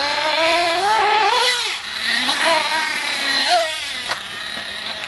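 Radio-controlled buggy's small engine revving up and down as it drives, its pitch rising and wavering several times before it eases off about three and a half seconds in. A single sharp knock a little after four seconds.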